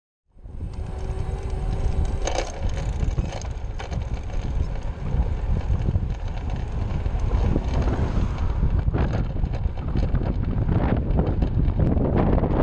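Wind rushing over the camera microphone with tyre and road noise from a road bicycle riding along. A faint steady tone sounds under it for the first couple of seconds.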